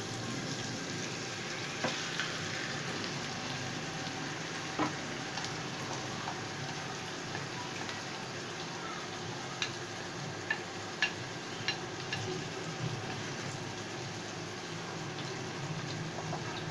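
Marinated mutton sizzling in hot ghee in a frying pan: a steady sizzle with a handful of sharp pops or clicks scattered through it. A wooden spoon starts stirring the meat near the end.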